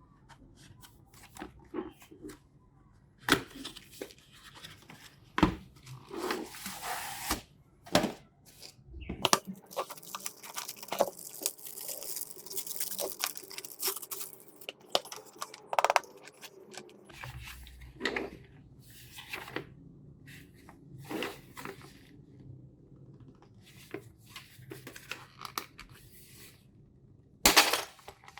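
Packaging being torn open and crinkled by hand, with irregular sharp clicks and rustles of handling throughout and a longer hissing tear in the middle.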